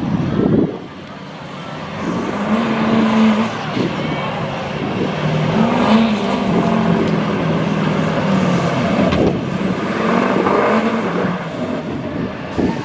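Chevrolet Silverado HD pickup's engine working hard under load as it drags a truck-pull sled, its note wavering around high revs, with a thin high whine over it.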